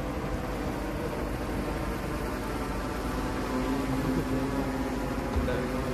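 Fixed-wing VTOL drone's propeller humming steadily overhead over a background hiss, its low tone growing stronger about halfway through as it comes closer.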